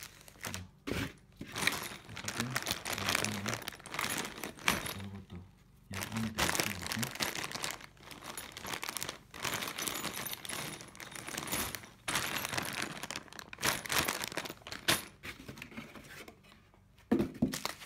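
Crinkling of plastic packaging and a paper instruction sheet being handled, with small clicks and clinks of furniture hardware pieces, in irregular bursts.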